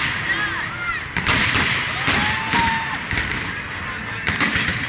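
Fireworks salute shells bursting overhead: a quick run of sharp bangs from about one to two and a half seconds in, and another near the end.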